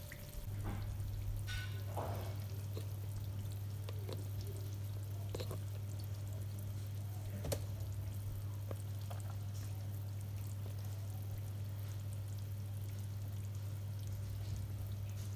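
A freshly baked eggplant-and-meat casserole in a glass dish, still bubbling and crackling faintly with small scattered pops. Under it runs a steady low hum that sets in about half a second in.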